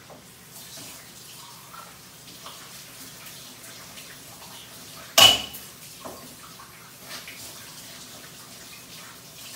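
Cleaning out a yogurt pot at a sink: faint running water and small rinsing and scraping sounds, with one loud, sharp clink that rings briefly about five seconds in.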